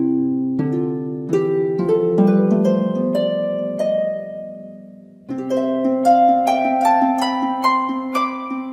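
Background music: plucked-sounding notes climbing in short runs over held low notes. The first phrase fades out, and a new one starts about five seconds in.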